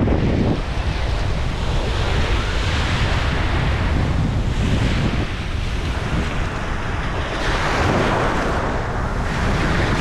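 Sea waves breaking and washing up the beach, rushing in surges a few seconds apart, with wind buffeting the microphone as a steady low rumble.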